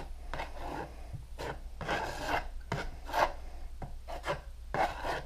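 Metal putty knife scraping and spreading patching compound over a drywall patch: a run of short, irregular strokes, roughly two a second.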